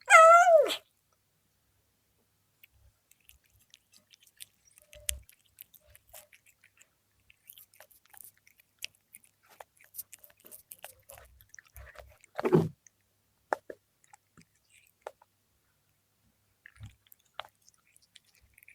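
A cat chewing fried milkfish: scattered soft crunches, clicks and smacks of biting and chewing. It gives one short, loud meow right at the start, and there is a single louder sound about twelve seconds in.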